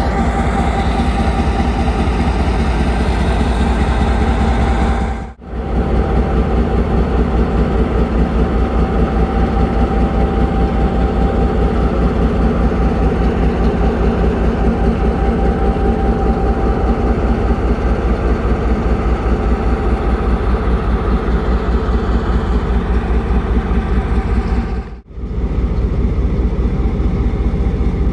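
Pakistan Railways diesel locomotive's engine idling steadily, with a fast even pulse in the low end and a steady hum above it. The sound drops out sharply for a moment twice, about five seconds in and near the end.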